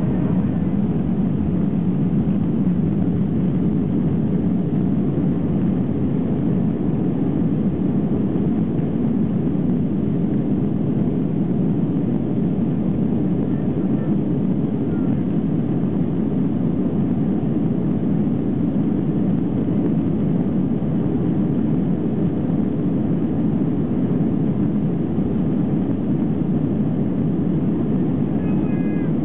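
Steady engine hum and cabin noise of an Airbus airliner, heard from inside the cabin as it taxis; the level stays even throughout.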